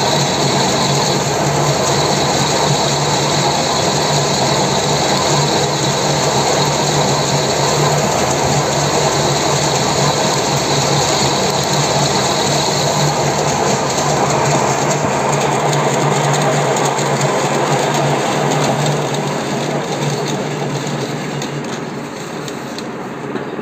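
Metal lathe running steadily with a constant low hum, turning a hydraulic cylinder rod with its eye end spinning in the chuck. Near the end the machine noise fades as the spindle slows to a stop.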